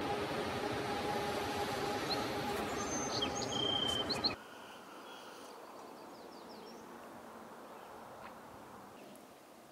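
Canadian Pacific freight train rolling past, a steady noise with a held whine over it and a few birds chirping. It cuts off abruptly about four seconds in, leaving faint outdoor ambience with occasional bird chirps.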